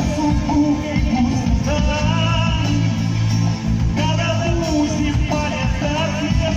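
Live band music with a singer, guitar and a steady bass, amplified over the event's sound system.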